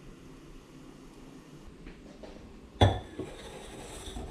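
A stainless steel bowl is knocked or set down with one sharp metallic clank nearly three seconds in, ringing on for over a second, amid a few lighter knocks.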